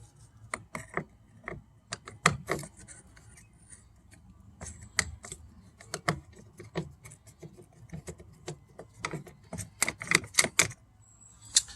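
Irregular clicks, taps and light knocks of a screwdriver and hands working the screw and plastic interior door handle trim loose on a car door, in a few quick clusters.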